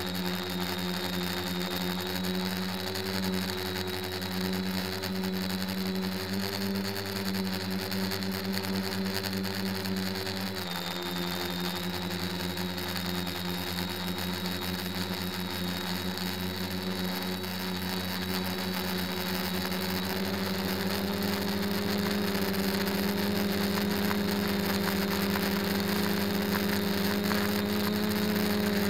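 A DJI quadcopter's electric motors and propellers whir steadily, heard close up from its onboard camera. The hum dips slightly in pitch about ten seconds in and climbs a little about twenty seconds in as the craft manoeuvres.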